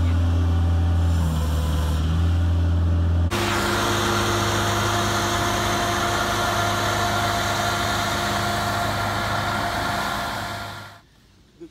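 A vehicle engine running steadily with a strong low hum; about three seconds in it changes abruptly to a skid-steer loader's engine running steadily, which cuts off near the end.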